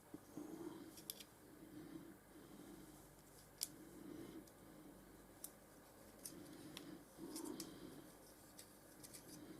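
Faint small-scale handwork on a plastic part: soft strokes that repeat about once or twice a second, with scattered light clicks.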